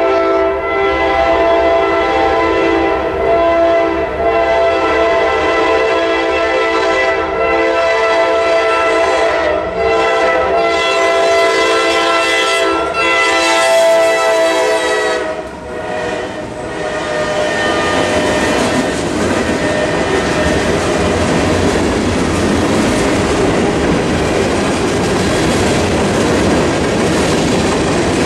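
A freight train's horn sounds as a series of long blasts with short breaks and cuts off about fifteen seconds in. From then on, the freight cars roll past with a steady rumble and clickety-clack of wheels over the rail joints.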